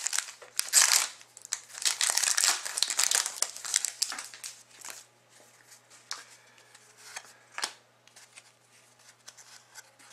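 A trading-card pack wrapper being torn open and crinkled, a dense crackling for the first four or five seconds, then quieter rustles and light clicks as the cards are slid out and handled.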